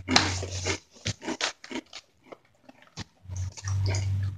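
Fried corn kernel snacks (chili-cheese cornick) being chewed close to the microphone: a run of short, sharp crunches, with a low hum near the start and again near the end.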